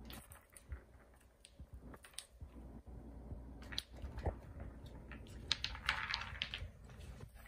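A kitten playing on a wooden cat toy with a sisal scratching post: its paws and claws make scattered light taps, clicks and scrapes, busiest about six seconds in.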